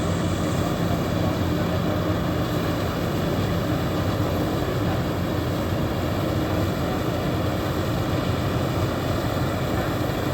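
Heavy farm diesel engines of a tractor and combine harvester running steadily under load, a continuous low drone with no break.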